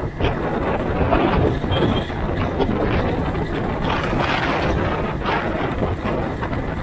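Wind rushing over the microphone of a moving motorcycle, with the bike's engine and road noise running underneath.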